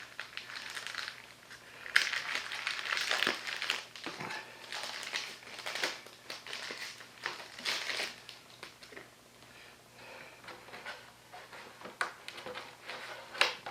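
Plastic packaging crinkling and rustling as a new welding-helmet outer cover lens is unwrapped and handled, busiest in the first half, then quieter with a few light clicks.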